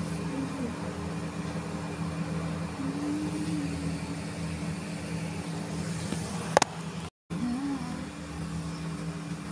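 A steady low machine hum with an unchanging pitch, with a sharp click about six and a half seconds in and a brief dropout just after it.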